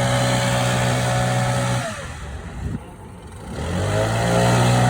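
Stump grinder engine running at a steady high speed, its pitch falling away about two seconds in, then climbing back up to full speed over the next two seconds.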